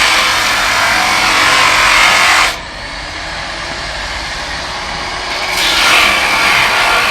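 Angle grinder cutting a pipe, a harsh steady rasp. The cutting noise drops off sharply about two and a half seconds in and comes back about three seconds later.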